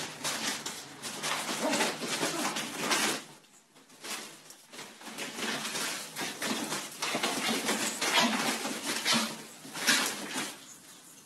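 A large dog food bag crinkling and rustling as puppies wriggle in and around it, with faint puppy whimpers. The rustling drops away briefly a few seconds in, then picks up again.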